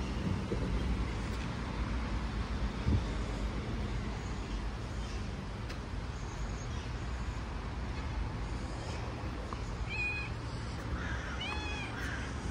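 A calico cat meows near the end with a short call that rises and falls, over a steady low urban rumble.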